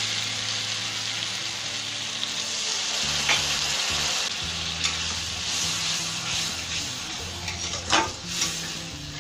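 Spice paste sizzling in hot oil in an aluminium kadai as about a cup of water is added, with a metal spatula stirring and knocking against the pan a few times. The sizzle eases slightly toward the end.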